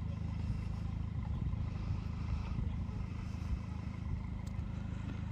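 An engine running steadily at low, even speed, a constant low hum.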